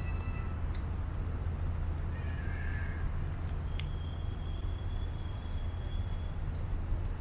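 Birds chirping on and off over a steady low rumble, with a thin high whistle held for about three seconds from about four seconds in and a single sharp click just before it.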